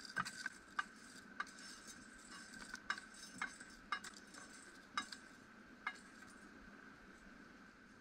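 Roasted coffee beans scraped with a wooden spatula from a frying pan into a carved wooden cup: scattered light clicks and rattles of beans against the pan and cup, stopping about six seconds in.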